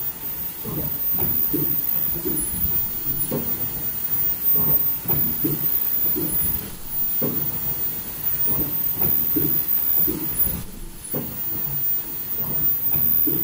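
Richpeace high-speed N95 folding-mask production line with double head-loop welding running: a steady hiss with repeated low mechanical thumps, about one or two a second.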